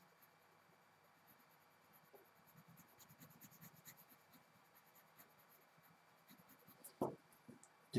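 Faint pencil strokes scratching on paper as small details are drawn in, with a short soft thud about seven seconds in.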